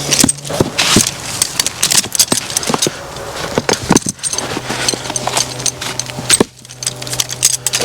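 Irregular metallic clinks and clunks of steel log tongs and firewood rounds being carried and set down. A steady low engine hum runs underneath, dropping out for a few seconds in the middle.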